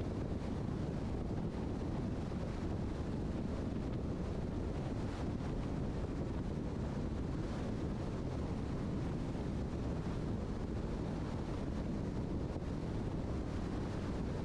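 Steady rumble of road and wind noise from a moving car, heaviest in the low end and unchanging throughout.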